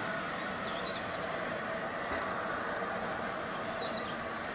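A songbird singing over a steady background noise: a short wavering phrase, then quick runs of rapidly repeated notes, with a couple more calls near the end.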